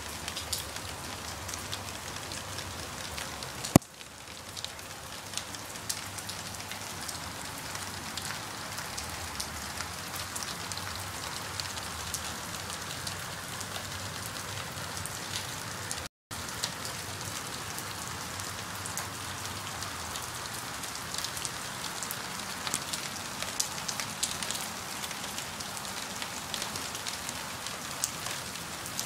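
Steady light-to-medium rain falling on surfaces, with many individual drops ticking through the hiss. A single sharp click about four seconds in, and the sound cuts out completely for a split second around the middle.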